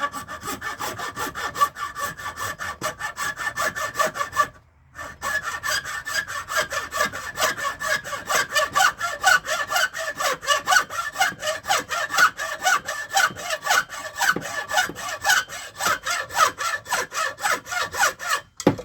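Small hand saw cutting into caribou antler with rapid, short back-and-forth strokes, about four or five a second, pausing briefly about four seconds in before carrying on.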